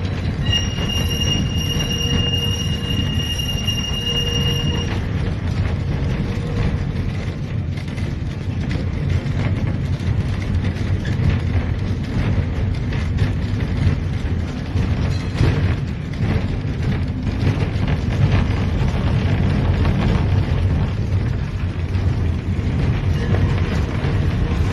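Tram running along its track, heard from inside the car: a steady low rumble of wheels and motor. For a few seconds near the start there is a high steady squeal.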